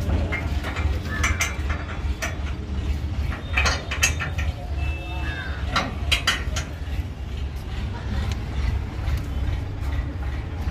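A steady low machine hum with irregular knocks and clinks over it.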